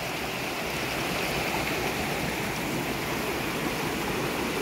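Steady rushing of a mountain stream.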